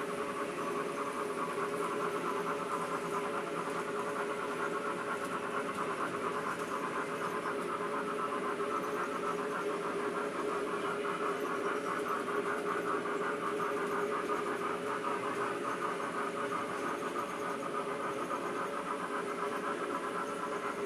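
N-scale model trains running on the layout: a steady whir from the motors with fine, rapid clicking from the wheels on the track.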